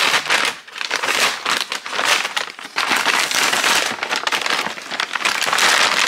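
Brown kraft-paper Amazon mailer being torn open and handled, a dense, irregular crinkling and crackling of paper that grows fuller and steadier about three seconds in.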